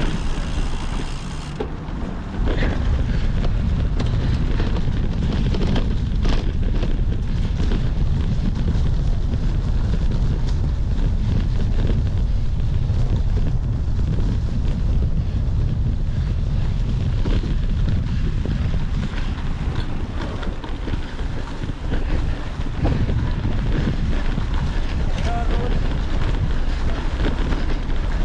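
Wind buffeting the microphone of a moving camera: a steady, heavy low rumble with a few scattered clicks.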